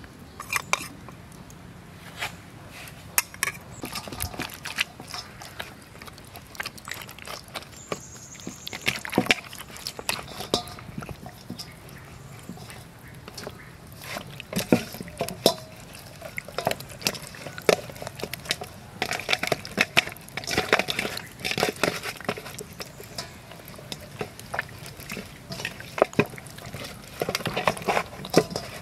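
Wet squelching and slapping as hands rub marinade into a whole raw chicken in a stainless steel bowl, in short irregular smacks.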